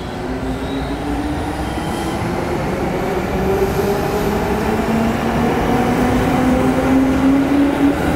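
Seibu 101 series electric train pulling away from the platform: its traction motor whine rises in pitch and grows louder as it gathers speed, over the rumble of the wheels on the rails.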